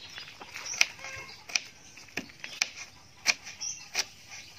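Kitchen knife chopping saba banana peel on a plastic cutting board: about six sharp, irregularly spaced taps of the blade on the board.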